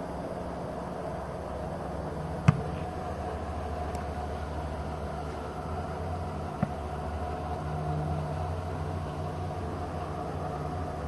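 A football kicker's foot striking the ball: one sharp impact about two and a half seconds in, with a fainter knock about four seconds later, over a steady low rumble.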